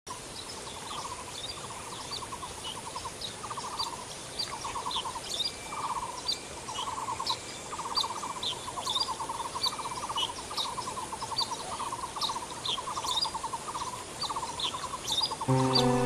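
Birds calling: a short trilled call repeated about once a second, with quick high chirps over it. Music comes in near the end.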